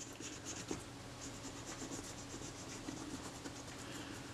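Faint, rapid scrubbing of a solvent-wetted cotton wad rubbed back and forth over a small metal part of a Kodak Retina IIIS camera, working off old adhesive that the CRC Lectra Clean is softening.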